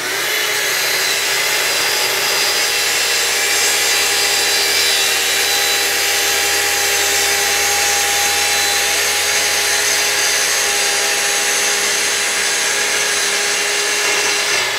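Festool TS55 plunge-cut track saw ripping through a sheet of plywood along its guide rail. The motor runs at an even, steady whine throughout the cut and starts to wind down at the very end.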